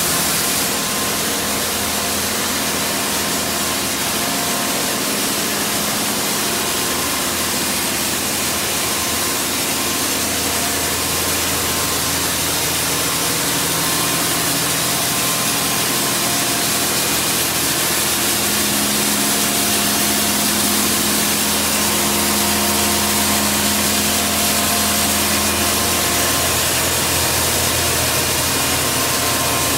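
D&S Quicksilver touch-free rollover car wash running: its gantry sprays water over the car with a steady hiss, over a steady mechanical hum.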